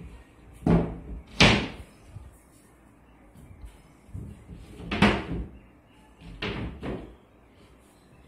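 Engineered-wood top boards of a box storage bed being lowered and shut onto its frame: about five hollow wooden knocks and thuds, the loudest about a second and a half in and about five seconds in.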